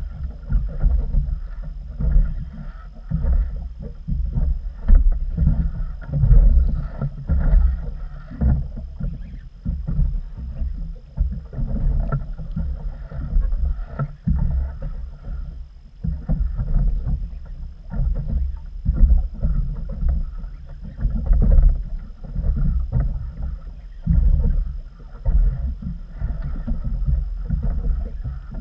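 Small waves slapping against the hull of an inflatable boat, with wind buffeting the microphone: a low, uneven rumble that swells and falls every second or two.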